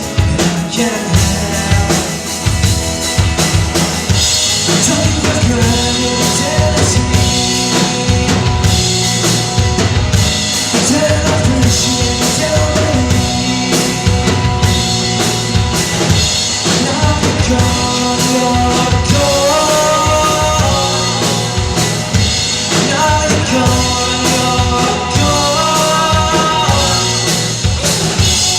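Live rock band playing an instrumental passage: a drum kit keeps a steady beat with bass drum and snare while pitched instruments hold notes over it, a melodic line of held notes coming to the front in the last third.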